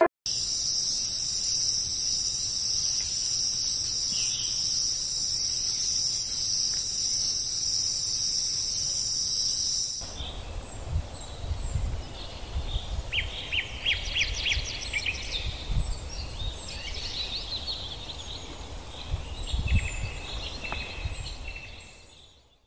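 An insect's steady high trill for about ten seconds, which cuts off suddenly. Then birds chirping in short, quick series of notes over a low rumble, fading out near the end.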